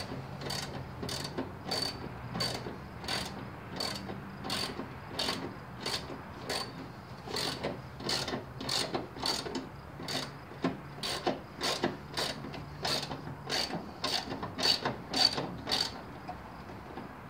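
Socket ratchet wrench clicking in a steady rhythm of about two strokes a second as something is tightened back down; the clicking stops about a second before the end.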